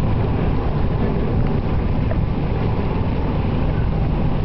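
Steady low rumble with wind noise on the microphone.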